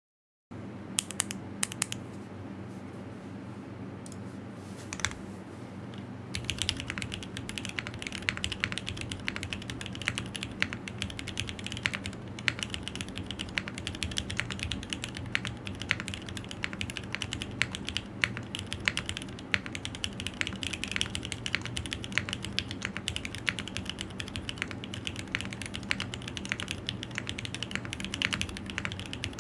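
Typing on a Geonworks Frog TKL custom mechanical keyboard with SP-Star Meteor White switches on 62 g springs, an aluminium plate and GMK keycaps. A few scattered keystrokes at first, then continuous fast typing from about six seconds in.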